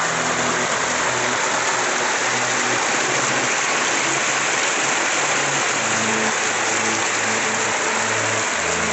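A small forest stream spilling over rock in a little cascade: a steady rush of water.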